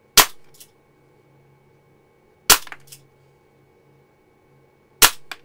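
Walther CP88 Competition CO2 air pistol firing .177 pellets: three sharp shots about two and a half seconds apart, each followed by a fainter click.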